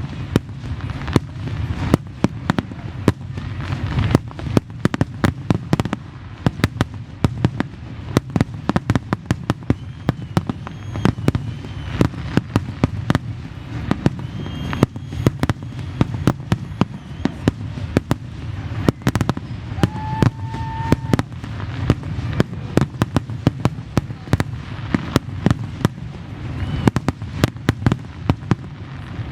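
Aerial fireworks going off in rapid, dense succession: many sharp bangs a second over a constant low rumble, with a few whistling shells in the middle.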